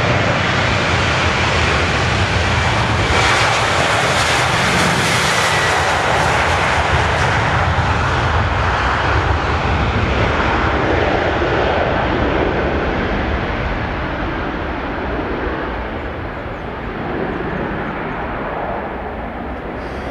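Boeing 737 jet engines at takeoff thrust as the airliner takes off, a loud, steady rush of jet noise. It is strongest about 3 to 7 seconds in, then slowly fades and grows duller as the aircraft moves away.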